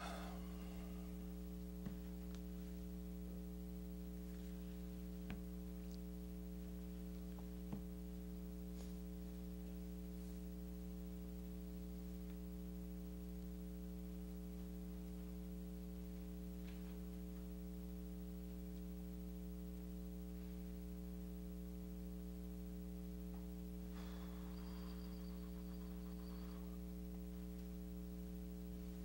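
Steady electrical mains hum with a buzzy stack of overtones, picked up through the recording's sound system, with a few faint clicks in the first eight seconds.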